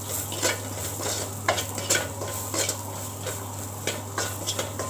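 A metal ladle stirring and scraping sliced shallots around an aluminium kadai, with strokes about every half second over the sizzle of the hot oil as the onions begin to sauté.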